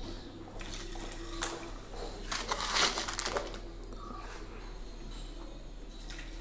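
Coarse rock salt spooned into a plastic bottle of water: gritty rattling bursts, the loudest about two to three seconds in, over a steady low hum.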